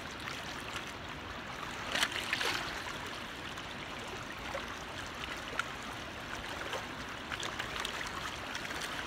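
Steady rush of river water with small trickles and splashes close by, a little louder about two seconds in.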